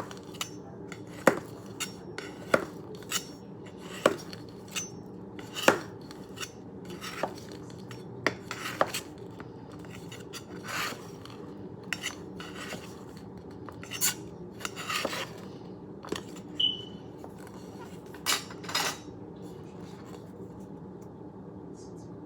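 A utensil clinking and scraping against cake pans while cakes are worked loose from pans that were not greased. Sharp clicks come every second or so, with a few longer scrapes, and they thin out near the end.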